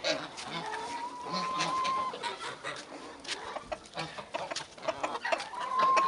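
Domestic chickens clucking as they peck at grain, with one long drawn-out hen call about a second in and another near the end, over many sharp ticks of beaks striking the feed.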